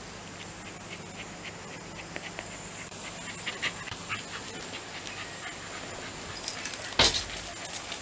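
Shiba Inu dog panting softly, with a run of small clicks and rustles, and one loud sharp thump about seven seconds in.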